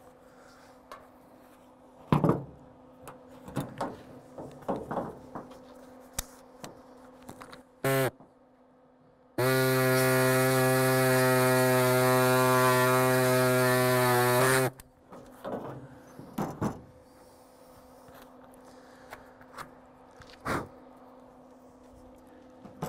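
Scattered scrapes and clicks of needle-nose pliers prying rusted sheet metal out of a rear-window channel. About nine seconds in, a loud steady pitched drone starts abruptly, holds for about five seconds, and cuts off with a slight drop in pitch.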